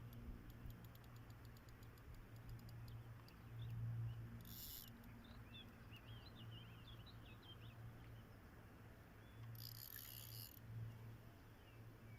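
Near silence with a steady low hum, a few faint bird chirps in the middle, and two short high hissing rustles.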